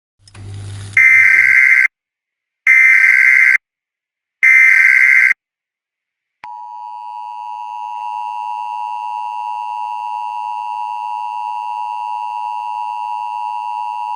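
Emergency Alert System broadcast tones: three loud bursts of the digital SAME header, each about a second long and about a second apart, then, about six seconds in, the steady two-tone EAS attention signal.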